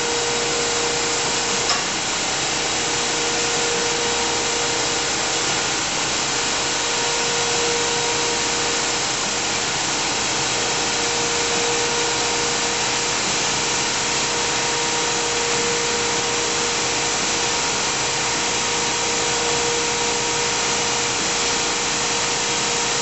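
GMP SG-1000/400 hydraulic surface grinder running, with its spindle motor and hydraulic pump driving the wheel and traversing the table. It makes a steady hum and hiss with a single held tone.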